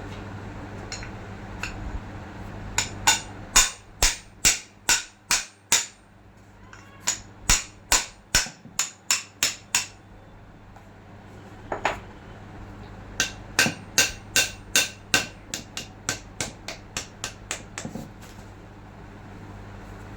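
Hammer blows on the metal parts of a forklift's steering hydraulic cylinder, tapping parts into place during reassembly. The blows come in three steady runs of about two a second with short pauses between, each strike ringing briefly.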